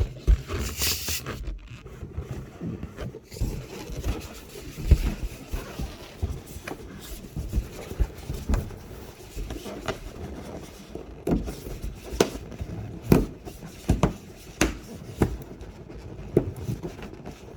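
Rubber balloons being handled: scraping and rubbing with irregular knocks and taps, and a short hiss about half a second in.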